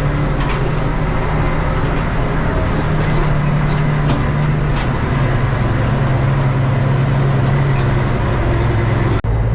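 Valmet 118 tractor's diesel engine running steadily under load through a straight-through exhaust while pulling a seed drill uphill, with a few light clicks over the engine note. The sound briefly cuts out just after nine seconds.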